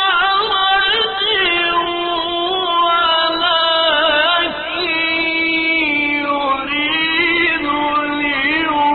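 A male reciter chanting the Quran in the melodic, drawn-out tajweed style, holding long ornamented notes that waver and turn in pitch, with only brief breaths between phrases.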